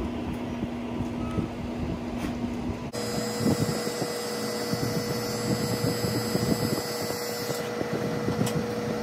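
Electric hair clippers running with a steady buzz during a haircut. About three seconds in, the sound switches abruptly to a cordless trimmer running with a higher-pitched steady hum.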